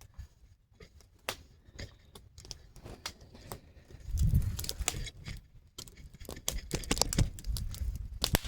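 Scattered clicks, snaps and rustles of things being handled, with low rumbles about halfway through and again near the end.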